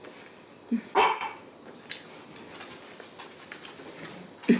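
A dog barking: one short, sharp bark about a second in and another near the end.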